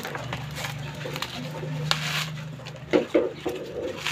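Fibrous husk of a sprouted coconut being torn and scraped off by hand and with a bolo knife: scattered rasping scrapes and clicks over a steady low hum. About three seconds in there is a short pitched sound.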